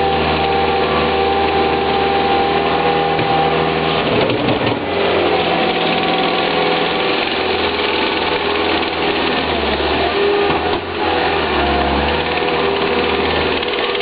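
Caterpillar skid steer loader's engine running steadily under load while backfilling a trench with dirt, its pitch shifting several times as the machine works, with brief dips about four and a half and eleven seconds in.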